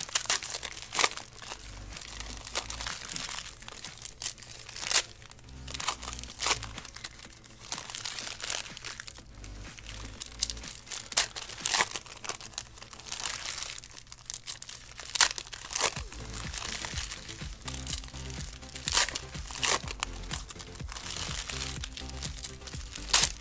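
Foil trading-card pack wrappers crinkling and tearing as football card packs are ripped open by hand, in short irregular crackles, with background music underneath.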